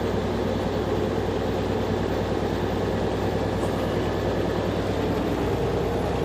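Truck's diesel engine running steadily, heard from inside the cab, with a constant low drone and road noise.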